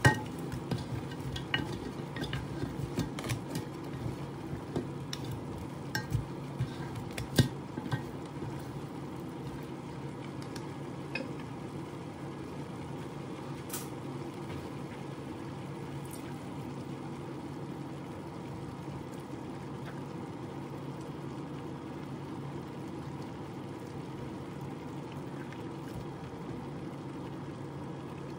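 Wooden spatulas stirring crabs and vegetables in a frying pan, with clacks and knocks against the shells and pan for the first eight seconds or so. Under it, the pan sizzles steadily with a low hum, which continues alone after the stirring stops.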